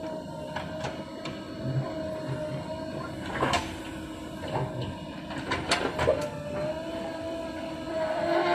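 JCB backhoe loader working: the engine runs under load with a steady, slightly wavering whine as the backhoe arm digs and lifts soil, and several sharp knocks and clanks from the bucket digging.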